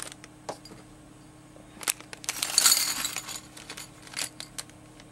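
Craft-kit packaging handled by hand: a crinkly rustle of paper or plastic wrapping about two and a half seconds in, among scattered light clicks and clinks of small items.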